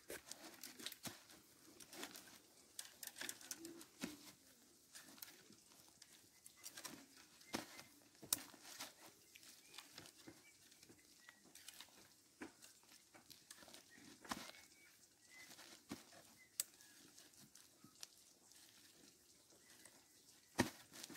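Faint, irregular clicks and light crackles of split carrizo cane strips being bent and woven into a basket, with several sharper clicks spaced a few seconds apart.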